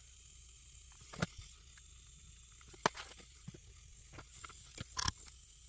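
Faint, scattered clicks and light taps from a small toggle switch and a soldering iron being handled while the switch's legs are tinned with solder. Three taps stand out: about a second in, near three seconds, and near five seconds.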